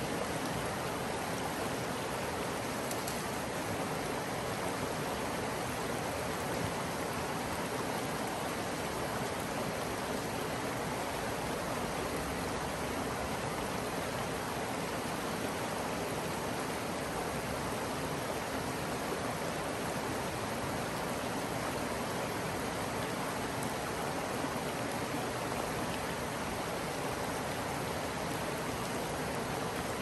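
Creek water flowing, a steady, even rush with no breaks.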